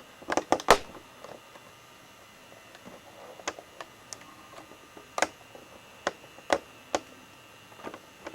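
Sharp plastic clicks from handling a Handycam camcorder's buttons and switches: a quick cluster of four or five just after the start, then single clicks about once a second.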